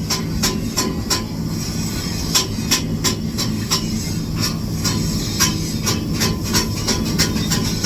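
Stick (SMAW) welding arc crackling with irregular sharp pops, about three or four a second, over a steady low hum.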